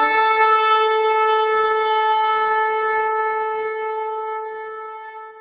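A horn blown in one long, steady held note that slowly fades and dies away near the end, just after a short lower note at the very start.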